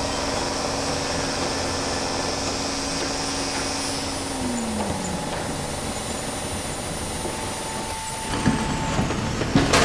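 A heavy vehicle engine running steadily, its pitch dropping a little about four seconds in, with louder knocks and clatter near the end.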